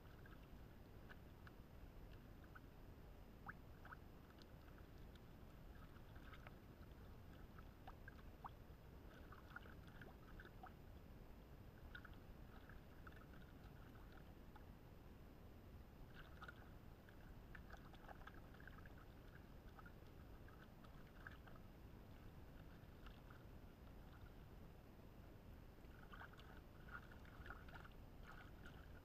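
Faint water sloshing and splashing as clothes are rubbed and rinsed by hand in shallow lake water, coming in small scattered clusters.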